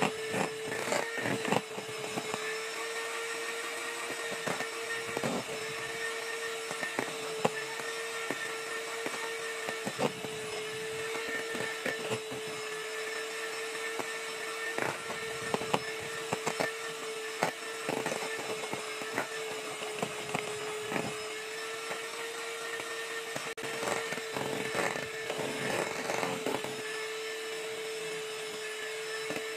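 Electric hand mixer running at one steady pitch, its beaters whipping thick boiled icing (egg whites beaten with hot sugar syrup) in a stainless steel bowl. Irregular clicks and scrapes come from the beaters knocking the bowl's side.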